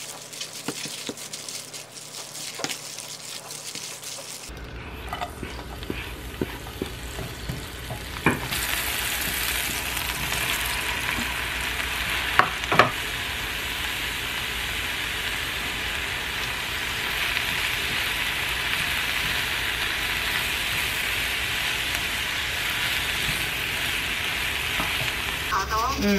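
Sliced mushrooms stir-frying in a nonstick frying pan: a steady sizzle, with a few sharp knocks of the spatula against the pan. It is preceded by a few quiet seconds of soft ticks while pork is kneaded into its marinade by a plastic-gloved hand.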